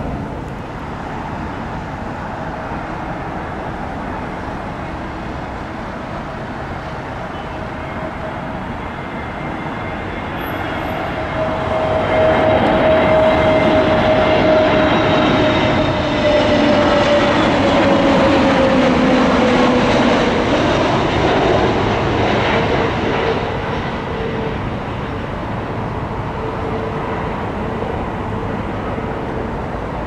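Jet airliner passing close by at low altitude, its engine noise swelling for about ten seconds, with a whine that falls in pitch as it goes past, over a steady rushing background.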